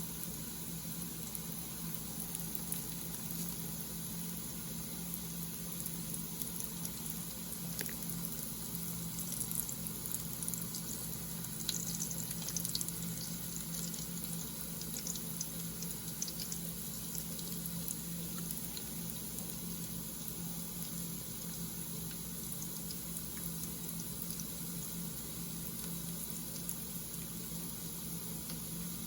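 Hot cooking oil sizzling on the stove, with scattered light crackles about a third of the way in, over a steady hum and hiss.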